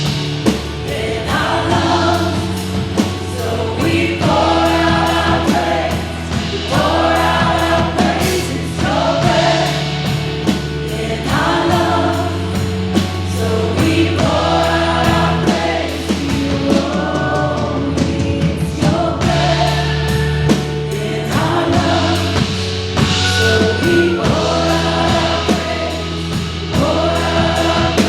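Contemporary worship band playing a song, with a group of voices singing phrases over sustained bass notes and a steady beat.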